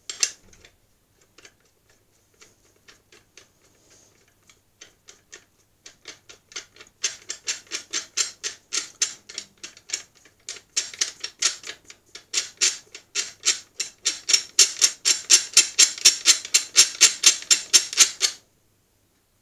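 Metal nuts being spun down by hand onto the threaded steel studs of a press's top plate, making a rapid metallic clicking. The clicks are sparse at first, then grow louder and quicker, about five a second, from about six seconds in, and stop shortly before the end.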